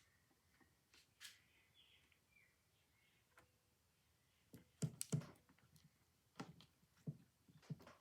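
Faint, scattered clicks and light taps of small metal parts and a tool being handled while screws are fitted into a phonograph's back bracket, with a quick run of sharper clicks about five seconds in.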